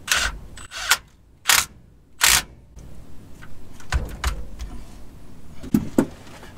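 Cordless power tool run in four short bursts, tightening the nut on the transmission output-shaft yoke, followed by a few light metal clinks and knocks.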